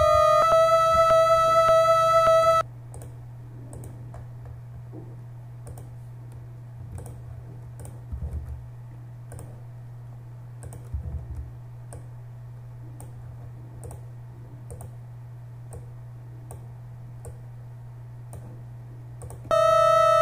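A loud, steady pitched tone with many overtones, from a pitch-shifted sample playing back in a video editor, cuts off suddenly after about two and a half seconds. A steady low hum with faint, regular clicks follows, and the tone returns just before the end.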